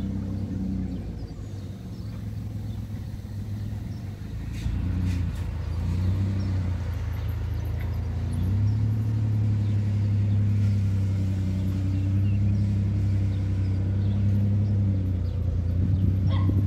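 A motor running with a low, steady hum whose higher tones waver up and down, growing louder about eight seconds in; a few faint clicks.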